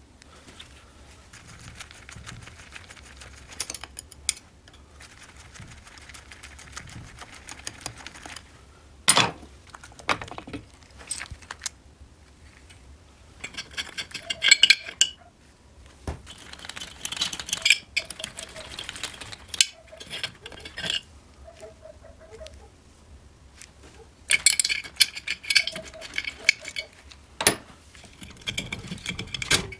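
Metal parts of an old Riga 12 two-stroke engine clinking and knocking as they are handled during disassembly: scattered sharp clicks, with bursts of metallic rattling in the middle and again near the end.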